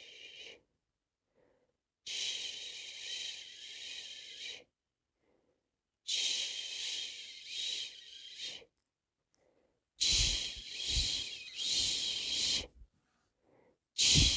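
A person shushing a baby to sleep with long 'chshhh' sounds, each lasting about two and a half seconds and swelling two or three times, repeated about every four seconds with silence in between. On the last two, breath pops on the microphone.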